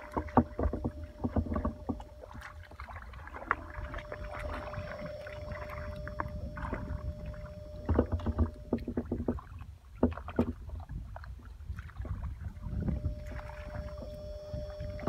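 Bare feet and hands sloshing and squelching through shallow liquid mud and water, in irregular splashes, while people grope in the mud for fish. A faint steady hum sits in the background for much of it.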